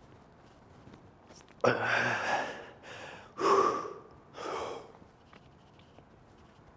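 A man exhales hard three times in quick succession, the first with a voiced grunt: heavy breathing from the exertion of a heavy weightlifting set.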